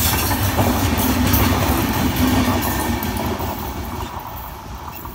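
Indian Railways passenger train rushing past at speed, its wheels clattering over the rails. The noise fades over the last couple of seconds as the last coach goes by.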